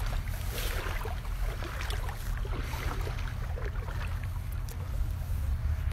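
Steady low rumble of wind on the microphone, with faint scattered crackles and ticks over it.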